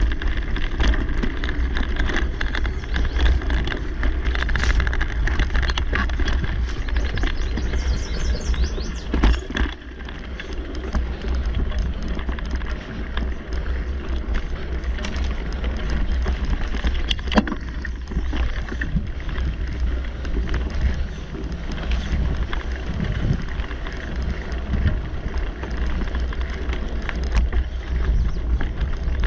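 Mountain bike riding over dirt singletrack: tyres rolling on packed dirt, with frequent clicks and rattles of the bike over bumps, under a steady rumble of wind on the microphone.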